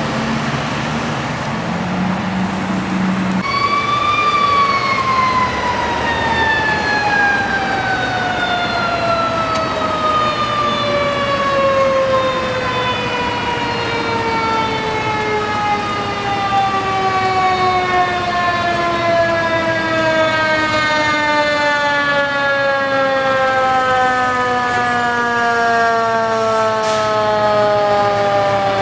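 A fire truck's Federal Q mechanical siren cuts in about three and a half seconds in and rises briefly. It then winds down in one long, slowly falling tone that is still sounding at the end. A low engine hum runs underneath.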